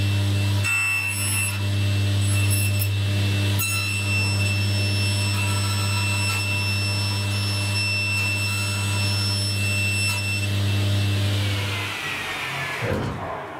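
Table saw running with a steady motor hum while a wood board is fed along the fence to crosscut small blocks, with a few short knocks of wood against the table. About 11 seconds in, the saw is switched off and winds down with a falling whine, followed by a brief knock.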